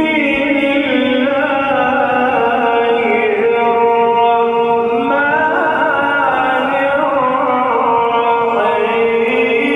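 A reciter's voice in ornate, sung Quran recitation, holding one long drawn-out note that winds slowly up and down in pitch without a break.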